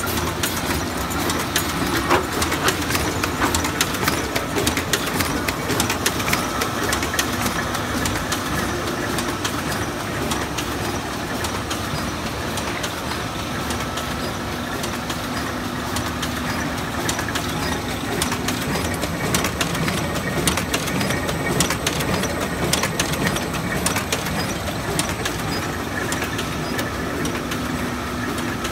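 Aster Astronic 150 thread book-sewing machine (gang stitcher) running, a steady mechanical clatter of many rapid small clicks.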